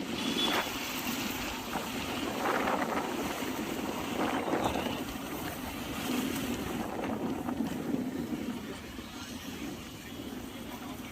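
Wind buffeting the microphone over the road noise of a moving motorcycle, a steady rushing that swells and eases slightly.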